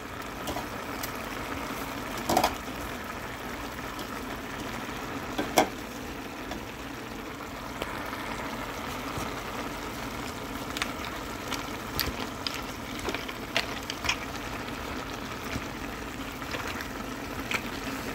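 Clams and their sauce bubbling steadily in a hot frying pan under a heap of basil as the clams steam open, with a few sharp clicks now and then.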